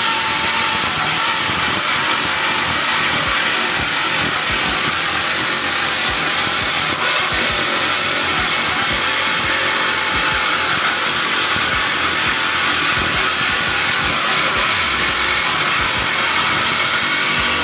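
Homemade table saw, a 7-inch blade driven by a salvaged jet-pump motor, ripping a thick mahogany board lengthwise: a loud, steady sawing sound with the motor under load. The blade is dull, so the cut goes somewhat slowly.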